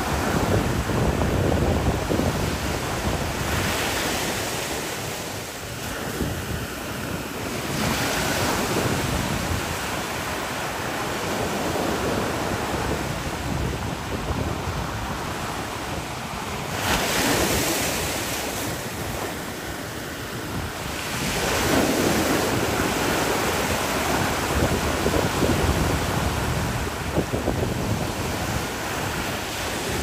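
Ocean surf breaking over and between rocky outcrops and washing into a cove: a continuous rushing wash that swells with each breaking wave every few seconds. Wind buffets the microphone, adding a low rumble.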